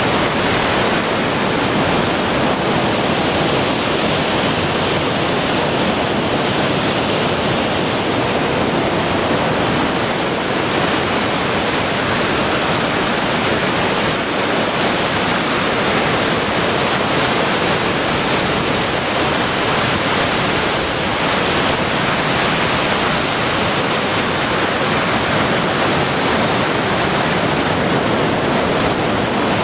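Floodwater rushing out of a sluice into the River Nene: loud, steady churning white water.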